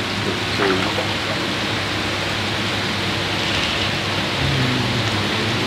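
Steady rushing, splashing water noise, like running water or rain.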